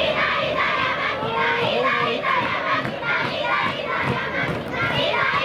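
Crowd of spectators chanting in unison, a string of short shouted syllables in a quick, even rhythm.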